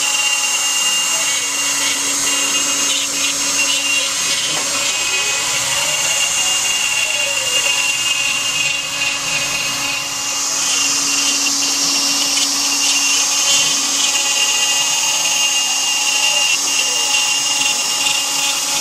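Router spindle on a homemade CNC machine running steadily with a high whine as its bit cuts a round recess in a wooden board. Underneath it, the machine's axis drives whine up and down in pitch as the cutter moves back and forth.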